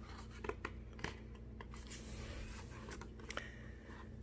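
A picture-book page being turned by hand: a faint paper rustle with a few small clicks.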